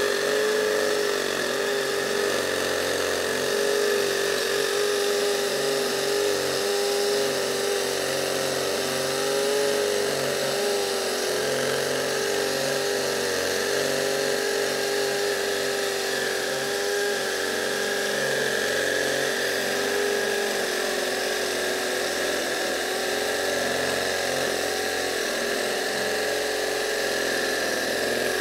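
Craftsman brushless cordless hammer drill boring into a concrete block with a 1/2-inch masonry bit, running steadily under load with a constant motor whine throughout.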